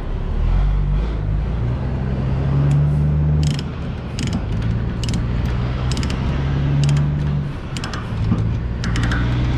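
Ratchet chain binder being cranked to tighten a load chain, its pawl clicking in short irregular spurts from a few seconds in. A loud, steady low engine hum runs underneath.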